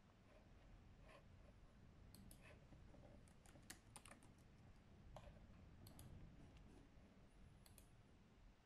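Laptop keyboard typed on by latex-gloved fingers: faint, irregular key clicks, coming in small clusters, over a low steady room rumble.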